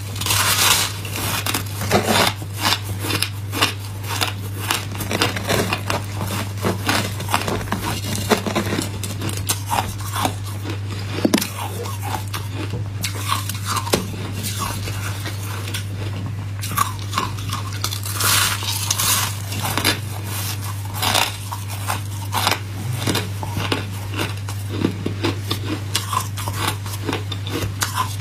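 Close-up crunching of packed shaved ice being bitten and chewed: a dense run of crisp, irregular crunches, with a steady low hum underneath.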